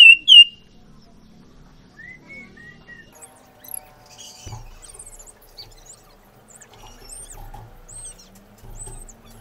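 Caged sirtu songbirds calling. Two loud hooked whistled notes come right at the start, then a few soft chirps about two seconds in. From about halfway on comes a run of faint, thin high notes, roughly one or two a second, with a few soft low thumps.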